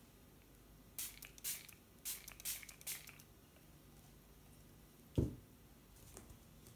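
Hand-pump spray bottle misting water onto watercolour paper, about five quick hissing squirts in two seconds. A single dull knock follows a couple of seconds later.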